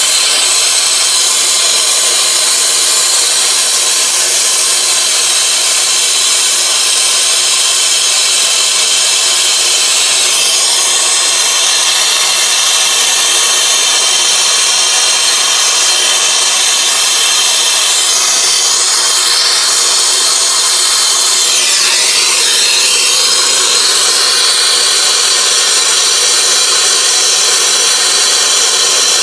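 Brazing torch flame hissing steadily while silver-soldering an air-conditioning refrigerant line.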